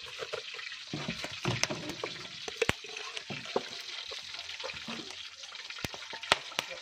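Small fish frying in hot oil in a wok, a steady sizzle, with a slotted metal spatula clicking and scraping against a steel bowl of salted fish several times.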